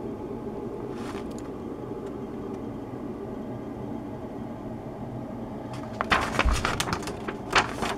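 Steady low room hum, then about six seconds in a run of crackling rustles and clicks as the paper instruction sheet is handled and turned over.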